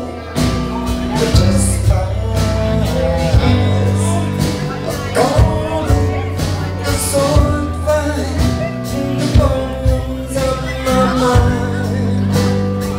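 Live rock band playing: a man singing into a microphone over electric guitars and drums, recorded from among the audience.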